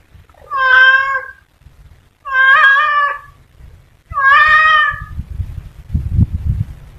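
A domestic cat meowing three times in a row, each meow drawn out to nearly a second, followed by low rumbling and knocking over the last two seconds.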